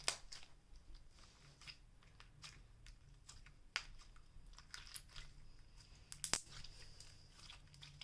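Glitter-filled clear slime being handled and squished by hand: faint, irregular small clicks and crackles, with two sharper clicks about four and six seconds in.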